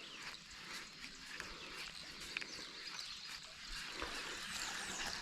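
Quiet lakeside outdoor ambience with scattered short bird chirps and calls over a steady hiss.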